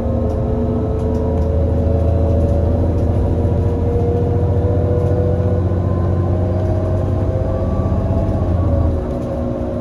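Irisbus Citelis 18 articulated bus's IVECO Cursor 8 six-cylinder CNG engine pulling under load, a heavy low drone with a whine creeping slowly up in pitch. Near the end the drone drops away as the load comes off.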